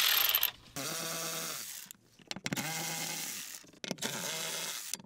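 Small electric power tool with a 10 mm socket spinning out the bolts of a BMW E46 fuel pump access cover: three runs of about a second each, with a steady motor whine whose pitch drops as each run winds down.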